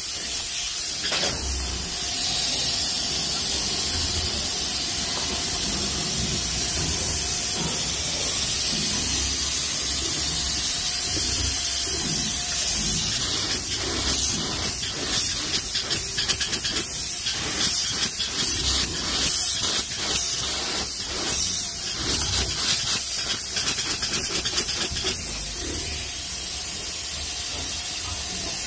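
Rigid polyurethane spray-foam gun hissing as it sprays foam. For several seconds in the middle, the steady hiss breaks up into short, flickering bursts.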